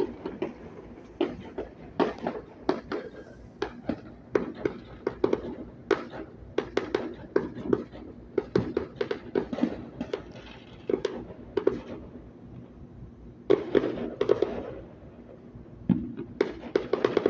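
Fireworks going off at a distance: irregular pops and bangs, several a second, with a denser crackling cluster about two-thirds of the way in and again near the end.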